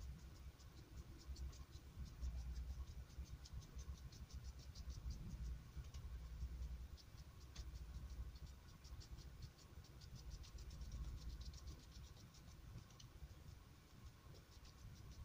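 Paintbrush dabbing watery acrylic paint onto paper: a faint, quick, irregular ticking and crackling of bristles and wet paper, with a low rumble underneath.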